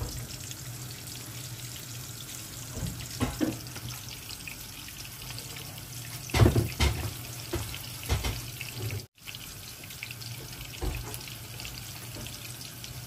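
Water running steadily from a kitchen tap, with a steady low hum underneath. A few short knocks of cookware fall over it, the loudest about six and a half seconds in.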